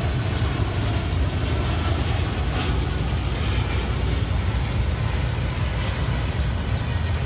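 Lockheed C-5 Galaxy's four turbofan engines giving a steady deep rumble as the large transport jet flies past and banks away.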